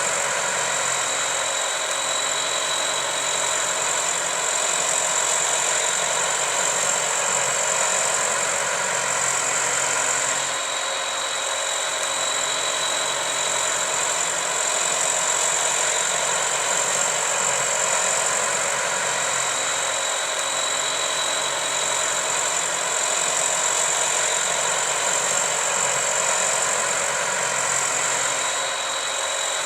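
A motor running steadily, with a constant high-pitched whine over a denser hum and a slight dip in level twice.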